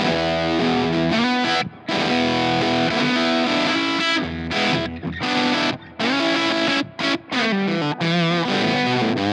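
Electric guitar, a 1976 Gibson ES-335, played through a Fulltone Octafuzz octave-fuzz pedal, giving a distorted fuzz tone. It plays sustained single-note lines with a few brief breaks and a wavering vibrato near the end.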